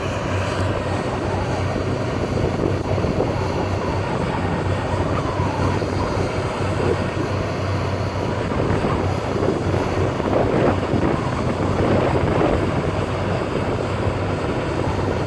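Steady wind rushing over the microphone, with a constant low rumble underneath.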